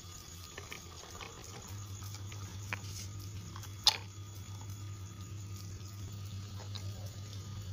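Toy tractor pulling a trolley loaded with a lump of brick over dry dirt: small tyres crunching on grit, with scattered small clicks and a low steady hum underneath. One sharp click about four seconds in is the loudest sound.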